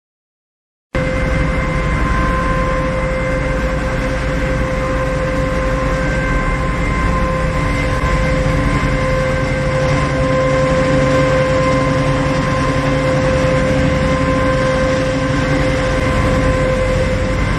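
Tofu cat litter production line machinery running: a loud, steady mechanical din with a constant motor whine over a low rumble. It starts abruptly about a second in.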